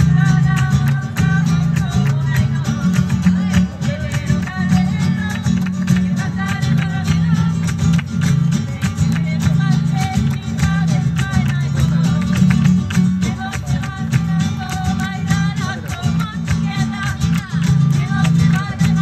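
Flamenco rumba played on two acoustic guitars, with steady rhythmic strumming.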